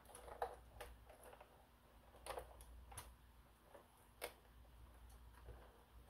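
Faint, scattered clicks and taps of a screwdriver and hands on the plastic underside of a robot vacuum as the drive-wheel module is unscrewed and worked loose.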